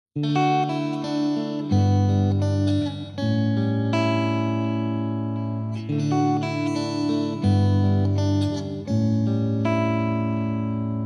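Instrumental background music, sustained chords changing every second or two, beginning just after a moment of silence.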